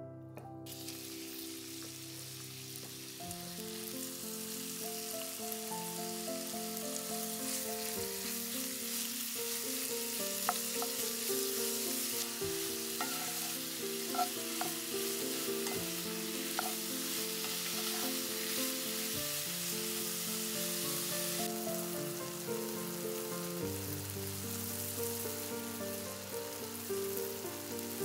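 Food frying in a pan of oil and butter, a steady sizzle, with a few sharp clicks near the middle. Soft background music plays under it.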